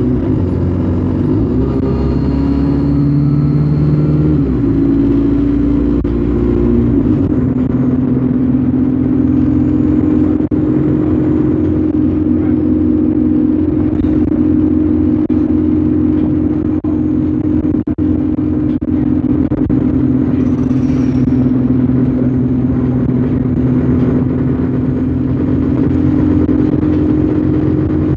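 ADL Enviro 200 Dart single-deck bus on the move, heard from on board: its diesel engine note shifts pitch several times over the first seven seconds or so, then settles into a steady hum with a low rumble as the bus cruises.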